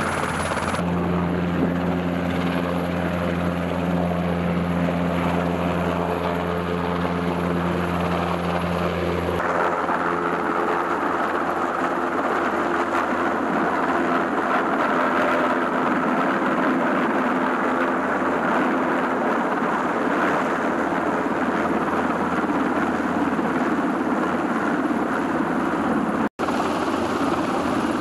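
MH-60 Seahawk helicopter running: at first a steady droning hum from rotor and turbines as it turns on the deck. About nine seconds in this changes abruptly to the dense rotor noise of the helicopter hovering with a sling load. The sound cuts out for an instant near the end.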